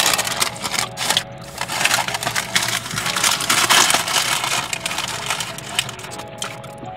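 Close-up crunching and crackling of crispy fried food being eaten, mixed with the rustle of its paper wrapper. The crackles come thick and irregular, then thin out over the last second or two.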